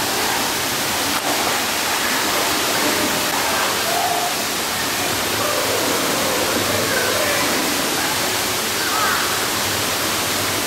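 Steady rushing hiss of water spraying and splashing in an indoor swimming pool, with faint voices over it.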